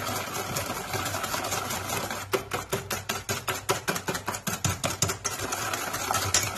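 Wire balloon whisk beating egg yolks, sugar and oil in a stainless steel bowl, the wires scraping and clicking against the metal. In the middle stretch the strokes turn into a fast, even clicking, about six or seven a second.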